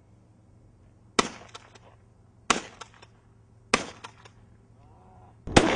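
Three gunshots about a second and a quarter apart, each a sharp crack with a short echo, followed near the end by a louder, rougher burst of noise.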